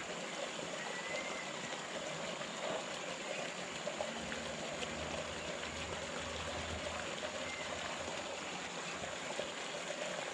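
Steady rush of water pouring into a pond.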